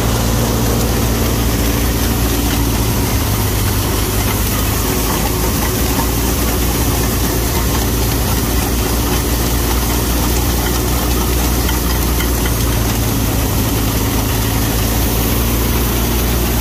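Stationary wheat thresher running steadily, belt-driven by a Massey Ferguson 375 tractor's diesel engine: a constant low engine hum under an even hiss from the threshing drum and blower.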